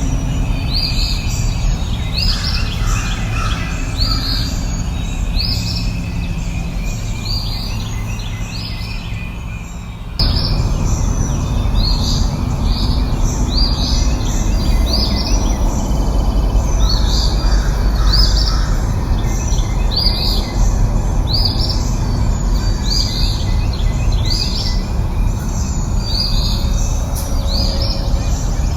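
A bird repeating a short, high chirp about once a second over a steady low background rumble. The background changes abruptly about ten seconds in, like a splice in the recording.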